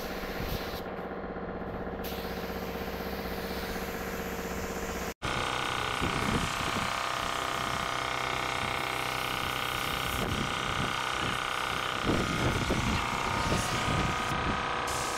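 Compressed-air spray-painting rig running steadily: a machine hum with the hiss of the spray gun, broken by a sudden cut about five seconds in.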